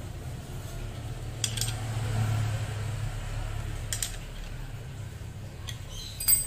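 Hand tools and metal parts clinking as engine mount bolts are worked loose: three sharp metallic clinks, the loudest near the end, over a steady low hum.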